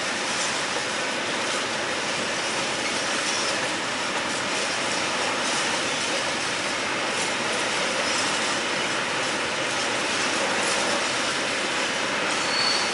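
Freight train of open box wagons rolling past steadily, with the continuous rumble and rattle of its wheels on the rails.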